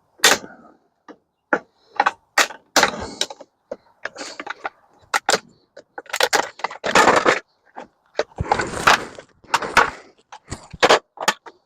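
Irregular clanks, knocks and rattling clatters of metal scrap parts being handled and dropped while microwaves are being stripped, some single sharp hits and some longer jumbled rattles.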